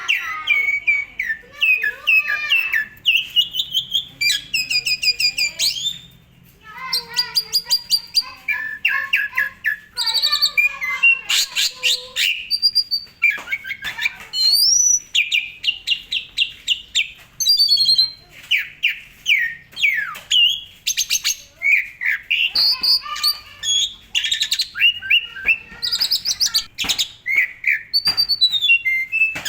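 Asian pied starling (jalak suren) in full, continuous song: fast chattering trills, rattles and gliding whistles follow one another in quick, varied phrases, with a brief pause about six seconds in.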